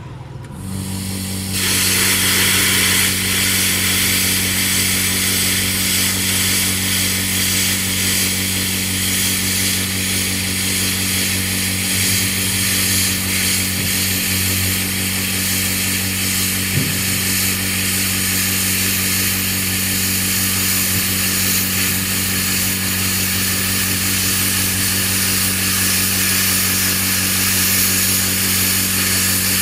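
Tenya CUT-60C plasma cutter cutting 10 mm steel plate on its built-in air compressor. The compressor motor comes on with a steady hum about half a second in. About a second later the arc and air jet join with a loud, steady hiss that holds through the cut.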